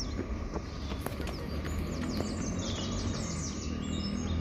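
Small birds chirping and singing over a steady low background rumble, with a quick run of chirps about two seconds in.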